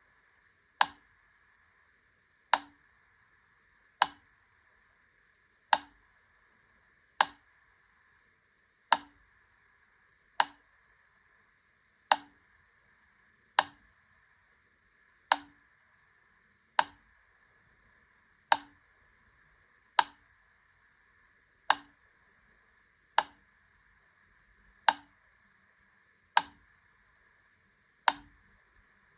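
Wittner Taktell Piccolo clockwork metronome ticking slowly, about one sharp click every second and a half, with the gaps alternating slightly longer and shorter.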